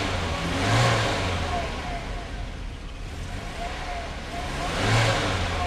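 Car engine revving and running, rising in two swells about four seconds apart.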